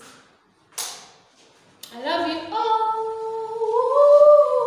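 A woman's voice singing a wordless held note: it starts about two seconds in, holds steady, then steps up in pitch near the end. A short breathy hiss comes about a second in.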